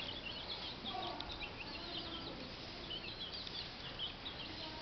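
Chickens calling: a steady stream of quick high chirps, with a few lower clucking calls about a second in and again around two seconds in.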